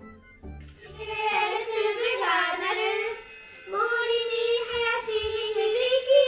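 Children singing a song together over candles, in two long sung phrases with a short break about three seconds in, after a few soft instrumental notes at the start.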